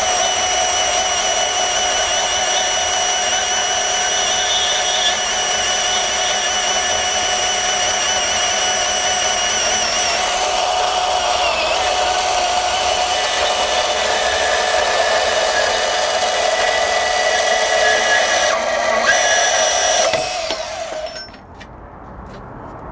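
DeWalt 20V Max DCS374 cordless deep cut band saw cutting through quarter-inch steel angle iron: a steady motor whine with the blade grinding through the steel. The sound stops about 21 seconds in as the blade finishes the cut.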